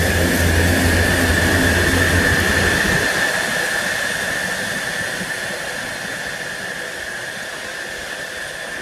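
Apron noise at a parked Boeing 737-300 freighter: a steady high-pitched whine with a low engine drone under it. The drone cuts off about three seconds in, leaving the whine, and the whole sound slowly fades.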